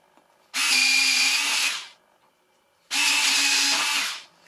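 Electric landing-gear retract units of a Freewing F-35 RC jet running, a steady motor whine in two separate runs of about a second and a quarter each: the gear lowering, then retracting again.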